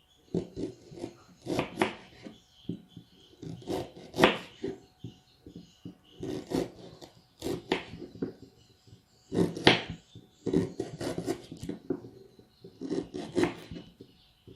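Kitchen knife cutting fresh ginger root on a wooden cutting board: irregular clusters of short strokes and scrapes with brief pauses between them.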